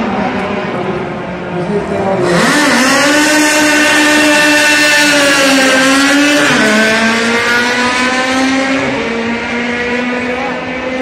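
Race car engines going by at speed. One engine note suddenly gets louder about two seconds in, holds high, then drops in pitch about four seconds later as the car passes.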